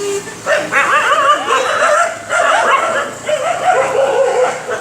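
Several stray puppies yelping and whining at feeding time, high wavering cries overlapping one another in bouts.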